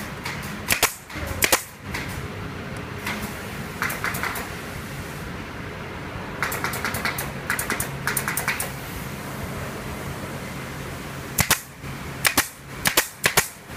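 Sharp cracks of workshop tools striking or firing, some in pairs and one quick run of about eight, over a steady low machine hum on a furniture factory floor.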